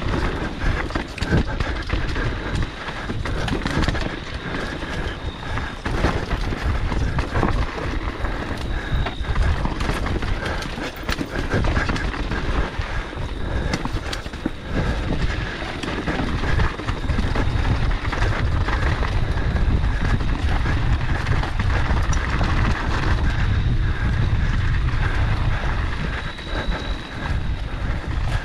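Electric mountain bike descending rocky singletrack at speed: tyres crunching over dirt and rock, with constant rattling and knocking from the bike over the bumps. A low rumble runs underneath and grows heavier from about halfway.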